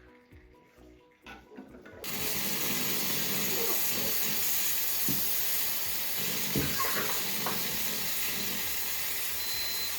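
Espresso machine steam wand blowing a loud, steady hiss of steam that starts suddenly about two seconds in, the purge the machine runs to clean itself after frothing milk.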